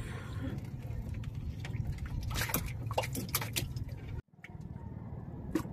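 Small wet splashes and drips in the shallow water in the bottom of a fishing boat where live eels and fish lie, with scattered light knocks against the wooden hull, over a steady low rumble. The sound cuts out briefly about four seconds in.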